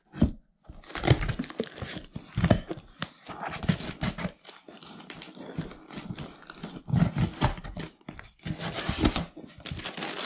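A taped cardboard box being opened by hand: irregular scraping, tearing and knocking of the cardboard flaps and tape, with packaging crinkling near the end.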